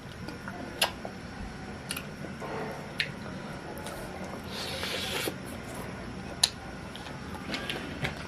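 A person eating roast chicken: wet, squishy chewing with several sharp mouth clicks and smacks, and a short soft rustle about five seconds in.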